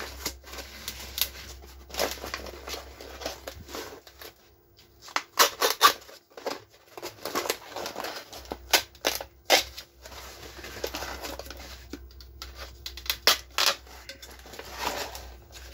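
The old paper cone and spider of a 12-inch loudspeaker being cut and torn away from its frame by hand: irregular snipping, scraping and ripping sounds with sharp clicks, with a short lull about four seconds in.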